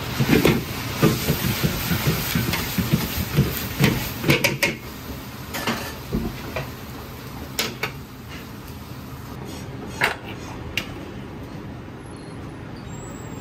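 Stir-fry being tossed and worked in an iron wok: dense clatter of the ladle and food against the wok for the first few seconds, then a few sharp metal clinks, over the steady noise of a commercial gas wok burner.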